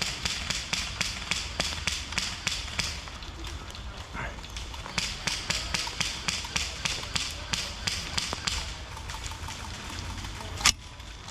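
Airsoft guns firing, a steady stream of sharp pops at about four a second, with one louder crack near the end.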